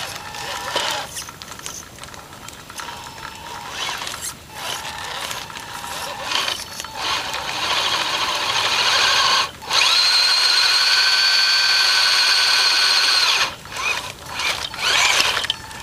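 Electric motor and newly installed GD-600 2.5:1 reduction gearbox of a Tamiya CC-01 RC crawler whining like a drill. The whine comes and goes in short throttle spurts. About eight seconds in it holds a steady, louder high whine for about five seconds, broken by a brief cut. Short bursts follow near the end.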